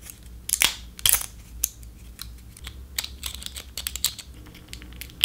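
Irregular light clicks and clacks against a low room hum. Two sharper clacks come about half a second and a second in, followed by a quicker run of fainter taps.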